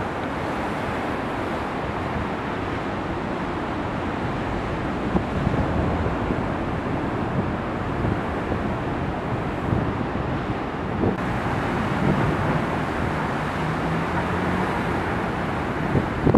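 Heavy storm surf breaking and churning in a steady wash of white water, with wind buffeting the microphone.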